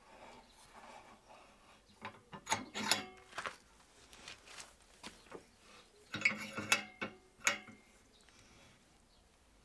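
Old steel bench vise being tightened by its handle: metallic clicks and rattles of the screw and sliding handle bar, in two bursts about two and six seconds in.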